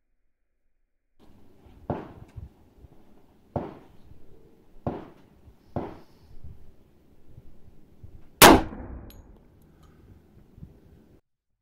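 A single shot from an HK45 .45 ACP pistol firing a 230-grain Federal Hydra-Shok round into a ballistic gelatin block, about eight seconds in and by far the loudest sound, with a short ringing tail. Four sharper, quieter knocks come before it, about a second apart.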